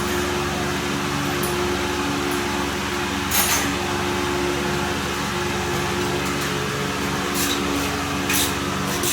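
Steady mechanical hum with a few short metallic clicks, three of them, from an 8 mm hex socket being worked on an engine oil drain plug.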